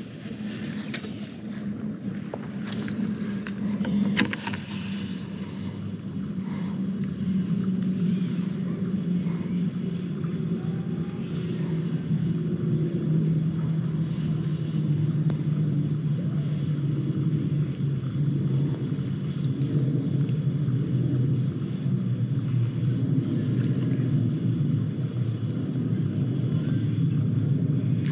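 A steady low engine drone that slowly grows louder, its pitch sinking a little as it goes, with a few sharp clicks in the first few seconds.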